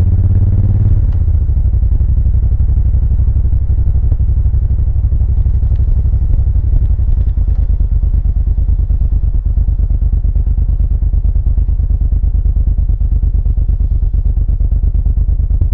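2000 Suzuki VL1500 Intruder LC's V-twin engine and exhaust running steadily at cruising speed, heard from on the bike, with wind noise over it.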